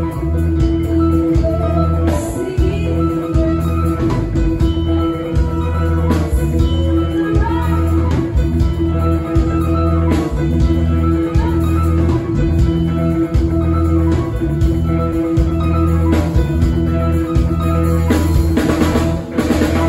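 Live rock band playing an instrumental passage: electric guitars, bass, keyboard and drum kit. Cymbal crashes come in near the end as the passage winds down.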